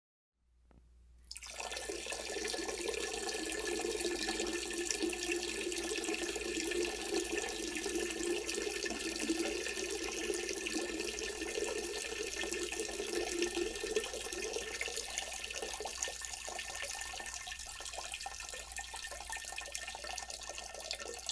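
A man urinating into a toilet bowl: a steady stream of liquid splashing into the water. It starts about a second in, then weakens and turns more broken and dribbling in the last few seconds.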